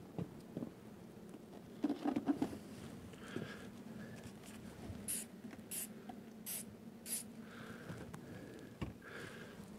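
Knocks and clatter of mini nuc boxes being handled about two seconds in, then four quick squirts of a hand spray bottle about two-thirds of a second apart, misting water onto the mini nucs so the bees have moisture.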